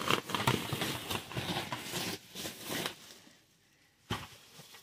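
Bubble wrap crinkling and rustling against cardboard as a bubble-wrapped folding aluminium table is slid out of its shipping box, for about three seconds; a single sharp tap about four seconds in.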